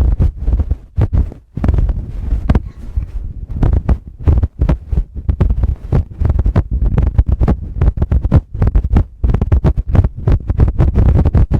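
Fingertips tapping and rubbing directly on a Tascam microphone, giving a rapid, irregular run of deep thumps mixed with sharper taps.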